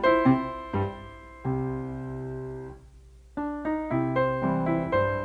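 Background piano music. Notes are struck and left to ring, with a chord held through the middle. There is a short pause about three seconds in, and then the playing picks up again.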